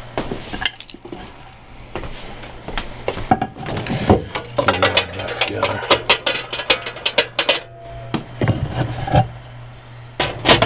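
Clinks, knocks and rattles of a microwave oven's glass turntable plate and plastic roller ring being handled and set into the oven, a quick run of small impacts that is busiest in the middle.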